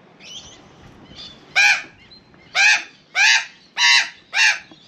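Female Australian magpie giving loud, harsh squawks: a couple of fainter calls, then five strong ones, the last four coming about every half second. She is scolding a cat near her nest.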